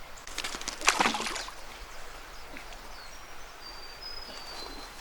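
Outdoor ambience: a short burst of rough, scuffing noise in the first second and a half, then a steady faint hiss with a few thin, high, level whistle notes in the second half.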